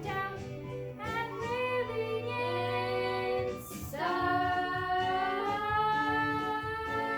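Young cast singing with instrumental accompaniment at the close of a musical-theatre song: a few short sung notes, then from about four seconds in a long held final note.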